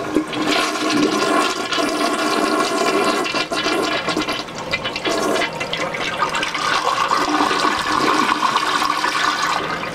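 A 1990s American Standard toilet being flushed: a loud, powerful rush of water that eases a little near the end.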